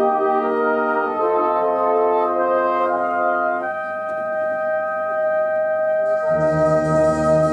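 Brass band playing slow, sustained chords behind a flugelhorn solo. The harmony changes about a second in and again near four seconds, then the low basses come back in about six seconds in.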